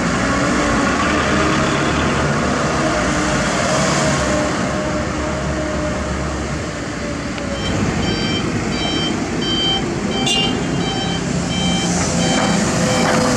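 Diesel dump truck engine running while a truck backs up, its reversing alarm beeping rapidly at about two beeps a second from about halfway through.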